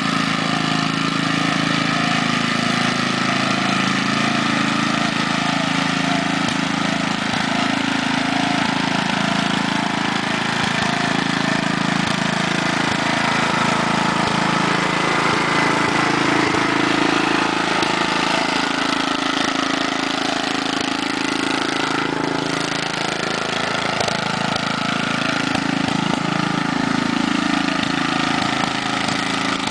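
Gas-powered rototiller engine running steadily, its pitch wavering slightly up and down.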